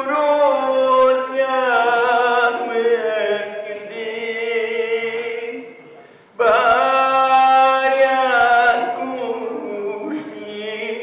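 A man singing into a microphone in long, drawn-out phrases that waver and bend in pitch, with a short break about six seconds in before the next phrase begins.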